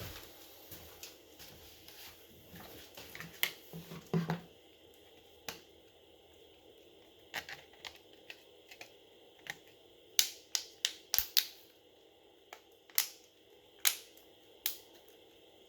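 Irregular small sharp clicks and taps of a smartphone's plastic housing and small repair tools being handled, with a quick run of louder clicks in the second half.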